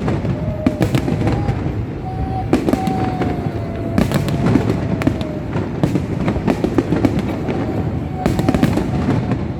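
Fireworks display: frequent bangs and crackles over a steady low rumble, with a thin wavering tone running underneath.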